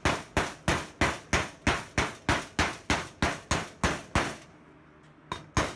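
Chipping (slag) hammer knocking slag off a fresh stick-weld bead on steel angle iron: sharp metallic taps in a quick, even rhythm of about three a second, stopping for about a second near the end and then starting again.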